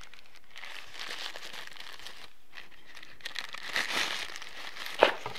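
White paper wrapping crinkling and rustling as a pair of sunglasses is pulled out of it. A single sharp click comes near the end.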